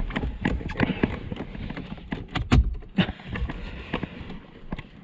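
Irregular clicks, knocks and footstep-like thumps of someone moving about and handling the car, with one heavier thump about two and a half seconds in.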